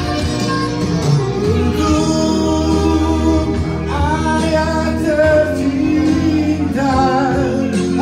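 Men singing a song into microphones over a backing music track, with a wavering held note near the end.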